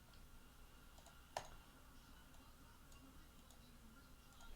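Near silence: room tone with one sharp click about a second and a half in and a few faint ticks.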